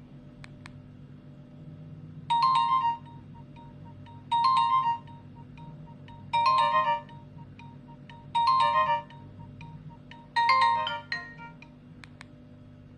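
Nokia 105 (2013) phone speaker playing a short ringtone phrase that repeats five times, about every two seconds. There are a few sharp clicks near the start and near the end.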